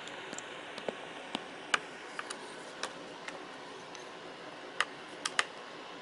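A dozen or so light, irregularly spaced clicks and ticks over a steady faint hiss. They come from a flathead screwdriver turning a laptop CPU socket's cam lock screw clockwise, locking the new processor into the socket.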